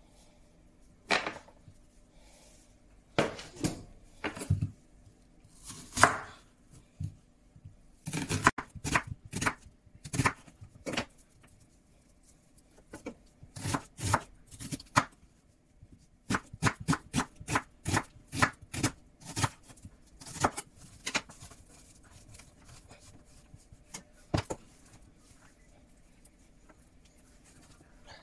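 Kitchen knife slicing an onion on a wooden cutting board: sharp knocks of the blade striking the board, in runs of about three strokes a second with short pauses between, thinning to a single knock near the end.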